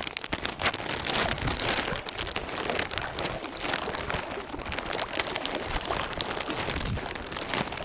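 Water splashing and dripping in dense, steady pattering as a gill net and its catch are handled in shallow water.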